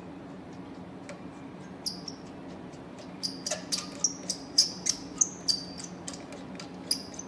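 A run of short, high-pitched squeaks, a few a second, starting about two seconds in, over a low steady hum.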